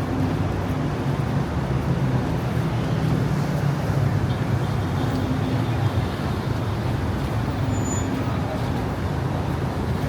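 City street traffic: the steady low rumble of car and bus engines running and passing, swelling a little a few seconds in. A brief high beep sounds near the end.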